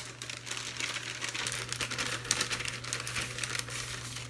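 Plastic packaging of an MRE flameless ration heater crinkling and rustling as it is handled, a dense run of irregular crackles with one sharper crackle a little past the middle, over a steady low hum.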